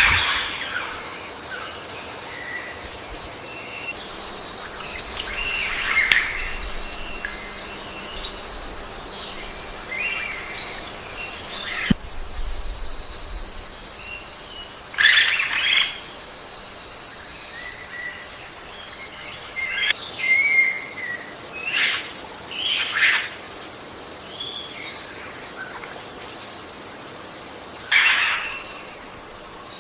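Forest ambience: birds chirping and calling in short bursts every few seconds, over a steady high-pitched insect hum.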